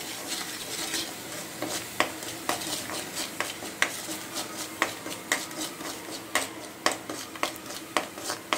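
Ginger-garlic masala with chilli powder and turmeric sizzling in hot oil in a kadai, with a spoon stirring it and scraping and knocking against the pan about twice a second.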